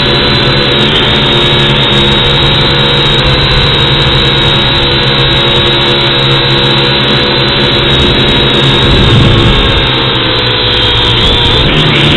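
Electric motors and propellers of a small remote-controlled aircraft, heard close up through its onboard camera: a loud, steady whine with a high tone on top. It swells briefly about nine seconds in, and the pitch shifts near the end.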